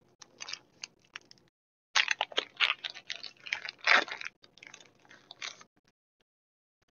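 Foil wrapper of a Pokémon TCG booster pack crinkling and tearing as it is opened by hand, in quick irregular crackles that are busiest and loudest in the middle of the stretch.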